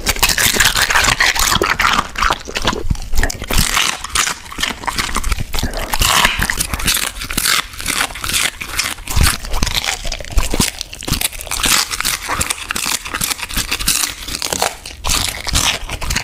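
A Border Collie chewing and crunching whole Brussels sprouts: a dense, continuous run of crisp, wet crunches.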